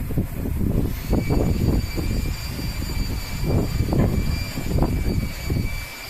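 Loren Sid Tufão 50 cm six-blade wall fan running, its airflow buffeting the microphone in uneven low gusts. A thin steady motor whine comes in about a second in and holds.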